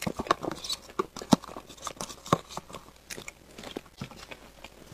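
Close-miked eating sounds: a metal spoon scraping a plastic cup of matcha cake, then chewing, with many sharp, irregular clicks and smacks, the loudest about a second and two seconds in.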